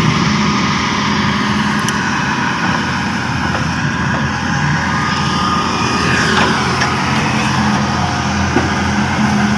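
Heavy machinery's diesel engine running steadily.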